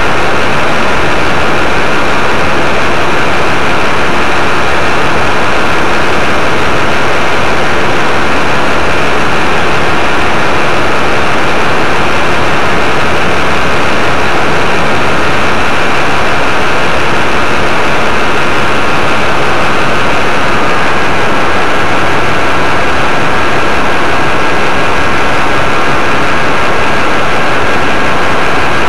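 Paramotor engine and propeller running steadily in flight, loud and unbroken, with a dense rush of noise over a faint steady whine.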